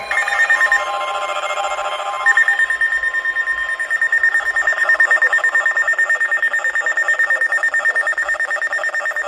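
Electronic alert tones from weather radio receivers: a rapidly pulsing beep under a steady high tone, which changes pitch about two seconds in. The tones signal a severe thunderstorm warning.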